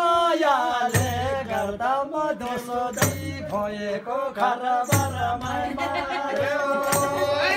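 A man singing a Tamang selo juhari melody with sliding, ornamented pitch, to a damphu frame drum that gives a deep stroke about every two seconds with lighter taps between.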